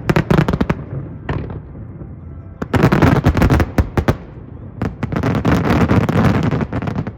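Fireworks finale: rapid volleys of shell bursts and crackle in three dense waves, with short quieter lulls between them. The bursts stop abruptly near the end.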